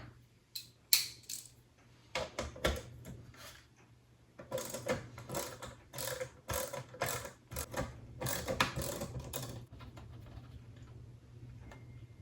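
Hand tool backing out the speedometer's mounting screws on an instrument cluster, with a few separate clicks and then a few seconds of rapid ratcheting clicks.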